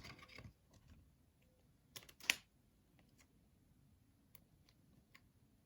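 Faint, scattered clicks and taps from trading cards being handled, with two sharper clicks close together about two seconds in.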